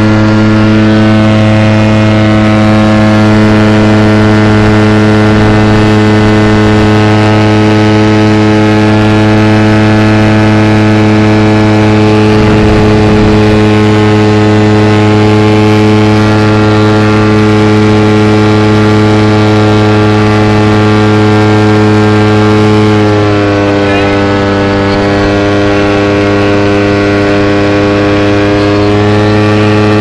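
Light aircraft's piston engine and propeller droning steadily in flight, heard from inside the cockpit. A little past two-thirds of the way through, the engine note drops slightly in pitch and gets a bit quieter, as when power is eased back.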